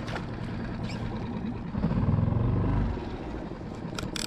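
Small outboard motor pushing a skiff at slow trolling speed, a steady low hum that swells louder for about a second midway. A few sharp clicks come near the end.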